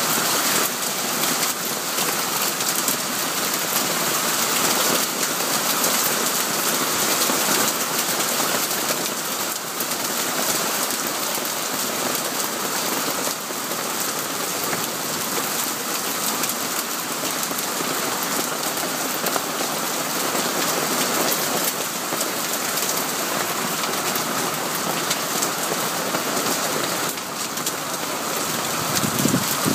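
Hailstorm: hail and heavy rain falling steadily on wet paving, a dense, unbroken noise.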